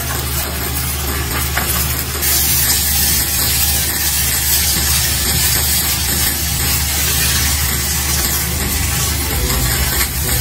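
Rice and a spinach-and-basil purée frying in a nonstick frying pan, sizzling steadily as they are stirred with a silicone spatula; the sizzle grows brighter about two seconds in. A steady low hum runs underneath.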